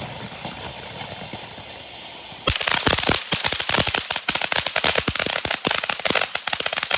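Consumer firework going off: a steady hiss for about two and a half seconds, then a rapid, continuous string of loud sharp cracks, many a second.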